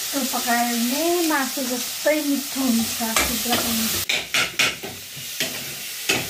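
Dried sidra fish curry sizzling in a wok on a gas burner while a spatula stirs and scrapes it. A wavering, hum-like tone sounds over the first three seconds. From about four seconds on come sharp knocks and clicks of the spatula against the pan.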